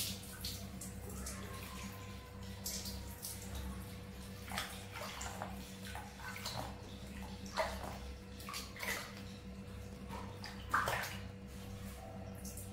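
Bath water splashing and pouring as soap is rinsed off a baby monkey: irregular splashes, a few louder ones, over a steady low hum.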